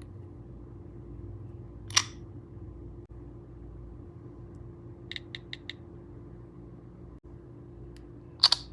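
iPhone system sound effects: a single sharp click, then a quick run of four light ticks about halfway through, then a louder double click near the end, over a steady low hum.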